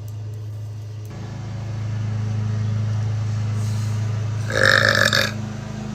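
A woman belches loudly once, a little over half a second long, about four and a half seconds in: an acid-reflux burp. A steady low hum runs underneath and gets louder about a second in.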